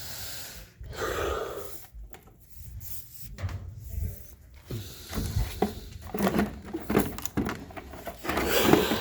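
Scattered knocks, bumps and rubbing, as of objects and debris being handled and moved.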